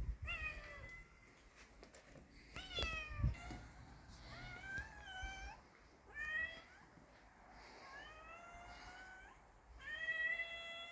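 A cat meowing over and over: about seven drawn-out meows, each bending in pitch, the last one long. A few low thumps come near the start and about three seconds in.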